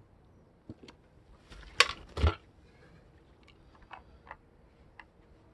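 A few scattered knocks and clicks, the two loudest close together about two seconds in.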